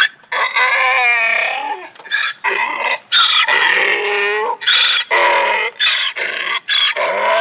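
Donkey braying: a run of hee-haw cycles, two long wavering calls followed by a quicker string of short calls.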